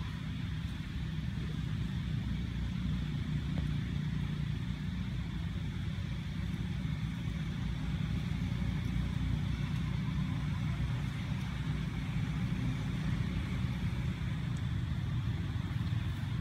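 Steady low rumble of an idling motor, even in level, with a faint steady high-pitched drone above it.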